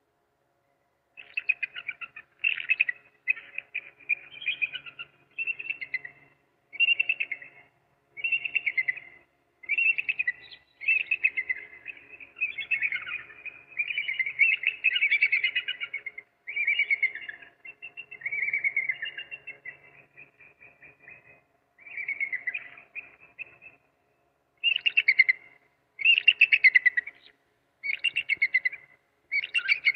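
African crowned eagle calling: a long series of high, quickly pulsed call phrases, each about a second long, repeated with short gaps.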